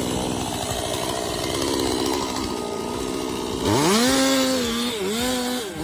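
Chainsaw engine running steadily, then revved up sharply about two-thirds of the way in. It holds at high speed, with a brief dip in pitch, before easing off near the end.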